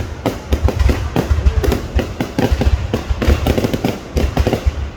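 Fireworks going off in a dense, unbroken barrage: sharp bangs several times a second over deep low booms.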